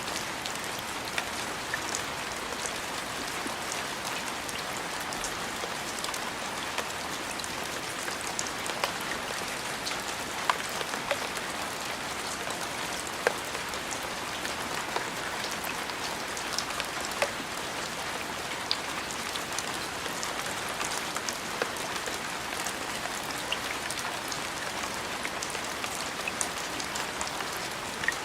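Steady rain falling, an even hiss with many scattered sharp ticks of single drops.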